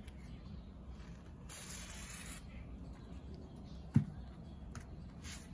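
Short hissing bursts of WD-40 aerosol spray, about a second and a half in and again near the end, lubricating a rubber wiper blade so it slides into its frame. A single light knock about four seconds in.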